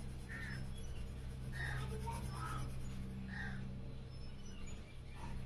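Graphite pencil shading on drawing paper: a few short, faint strokes about once a second over a steady low hum.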